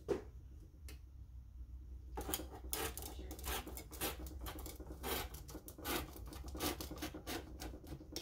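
Rotary cutter blade rolling through paper along the edge of a metal ruler: a couple of light clicks, then from about two seconds in a dense, uneven run of scratchy strokes.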